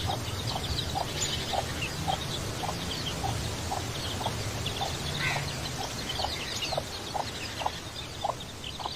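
Chicken clucking in a steady series, short clucks about two a second, with fainter high chirps over them.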